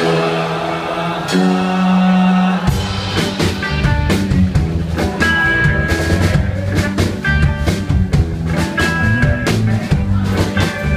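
Rock band playing live. Two long chords are held and left ringing, then the drums and bass come in a little under three seconds in and the full band plays on a driving beat.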